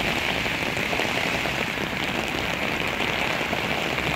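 Rain falling on an umbrella held over the microphone: a steady, dense patter with no let-up.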